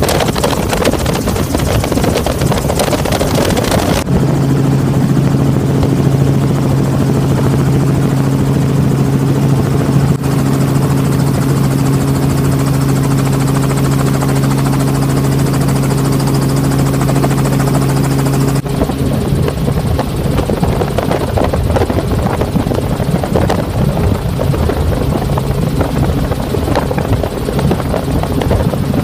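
Helicopter engine and rotor noise as heard from on board: a loud, steady, dense drone. It changes abruptly about four seconds in, carries a steady low hum until a second abrupt change about eighteen seconds in, then goes back to the plain drone.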